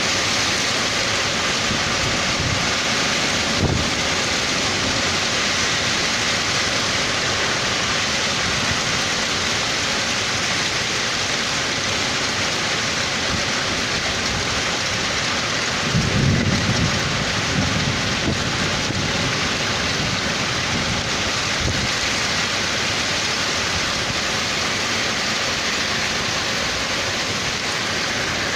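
Heavy rain in a passing summer thunderstorm, a steady loud hiss of downpour. There is a single sharp knock a few seconds in and a low rumble about halfway through.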